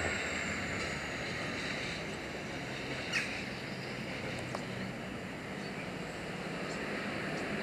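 Diesel locomotive's engine dying away as the train runs off into the distance. A thin high whine slides down and fades in the first second, leaving a faint steady rumble. There is a brief sharp sound about three seconds in.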